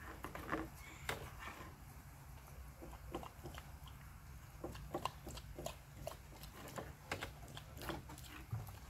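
Two dogs, an Alaskan malamute and a Siberian husky, eating steak and scrambled eggs from bowls: chewing, with irregular short clicks and smacks.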